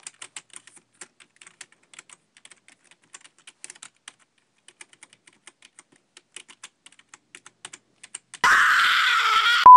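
Computer keyboard typing: a run of quick, uneven key clicks. Near the end a loud burst of noise lasts about a second, and a steady beep begins right at the end.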